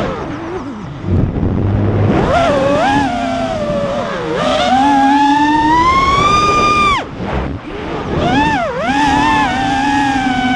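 FPV freestyle quadcopter's brushless motors and propellers whining, heard from its onboard camera. The pitch swoops up and down with the throttle, climbing to a high whine and then dropping sharply on a throttle chop about seven seconds in, with another quick dip shortly after, over a low rush of air.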